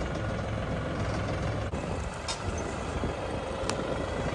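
LS compact tractor's diesel engine running steadily as the tractor drives forward.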